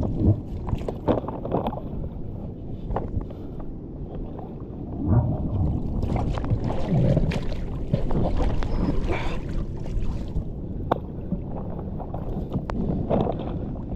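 Rumbling, uneven sea and wind noise on an open microphone, swelling and fading every second or two, with scattered knocks and clicks.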